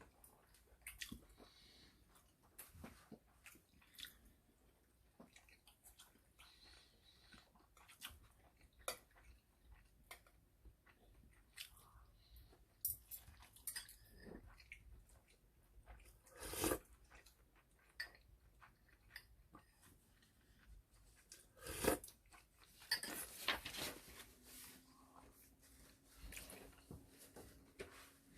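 Quiet chewing and biting of food at a meal, with scattered small clicks and two louder knocks partway through. A faint steady hum starts near the end.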